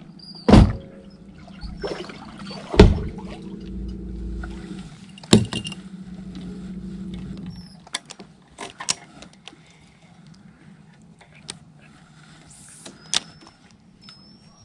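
A small electric motor hums steadily and stops about eight seconds in. Three loud hollow knocks sound over it, then a few light clicks follow.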